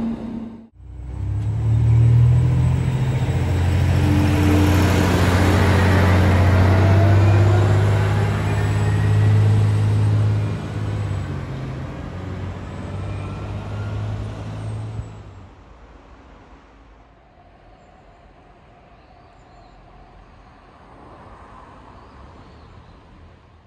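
A train running close by: a steady low drone with faint rising whines, loud for about fifteen seconds and then dying away.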